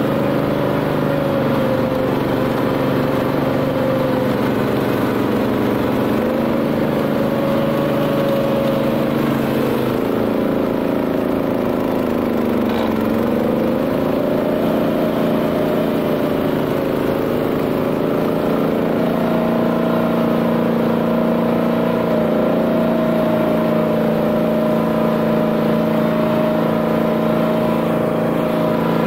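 BCS 740 walk-behind tractor's Honda GX390 single-cylinder engine running steadily at working speed, driving a flail mower. About halfway through, the engine pitch dips briefly and then recovers.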